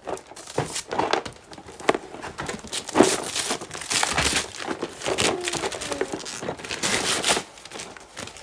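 Gift wrapping paper being torn and crumpled off a present by hand: a run of irregular rips and crinkles, with the sharpest rip about three seconds in.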